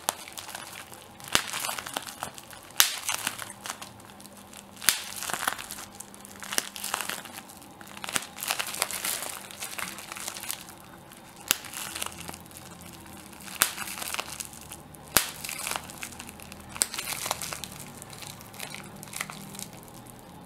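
Plastic bubble wrap being crumpled and popped: sharp pops at irregular intervals, roughly every second or two, with plastic crinkling in between.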